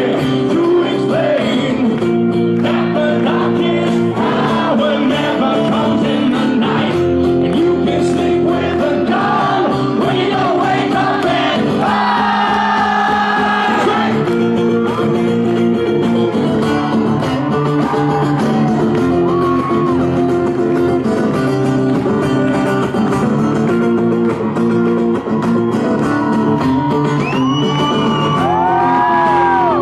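Live acoustic rock performance: acoustic guitar strumming steadily, with singing and shouts and whoops from the crowd.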